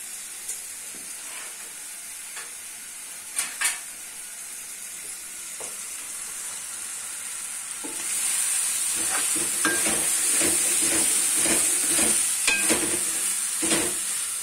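Chicken liver masala sizzling in a metal pan over a gas flame, with two brief knocks about three and a half seconds in. From about eight seconds in, a steel spoon stirs it, scraping and clinking against the pan, and the sizzling grows louder.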